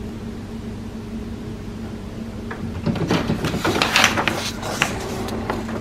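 A low steady hum, then about three seconds in a sheet of printer paper crackles and rustles as the printed alignment page is pulled out of the output tray and handled.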